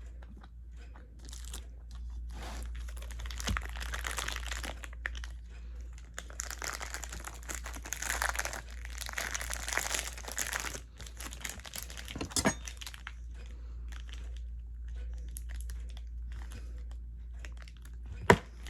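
Crinkling and rustling of wrapping being handled, in bursts over several seconds, followed by a sharp click and, near the end, a louder sharp knock.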